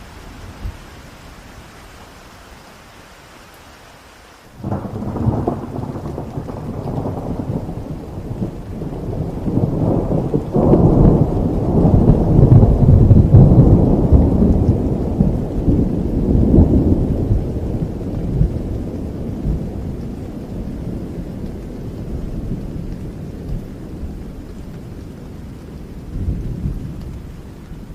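Heavy rain with thunder. Steady rain hiss, then about four seconds in a thunderclap breaks into a long, deep rolling rumble. The rumble builds for several seconds, slowly fades, and swells again briefly near the end.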